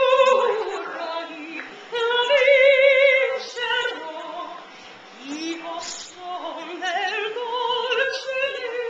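Puppy howling in several long, wavering notes, one after another, some rising into the howl.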